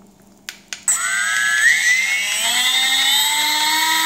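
Two quick clicks of the timer's push button, then the model's small brushless electric motor starts about a second in. Its high whine rises in pitch over the next two seconds and then holds steady as it runs at the RPM being set on the timer.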